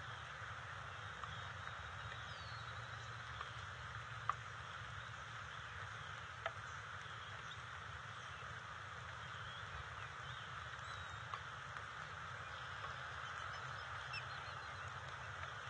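Steady outdoor hiss from the nest camera's microphone, with faint distant bird calls and a few sharp clicks, the loudest about four and six and a half seconds in.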